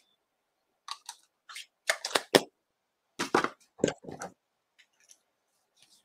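Papers and craft supplies being handled and set down on a desk mat: a string of short taps and rustles over the first four seconds or so, then quiet.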